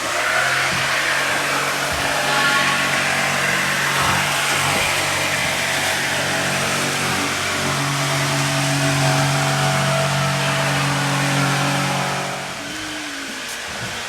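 A motor-driven machine running steadily, a low hum under a broad hissing rush; it drops to a quieter level about twelve and a half seconds in.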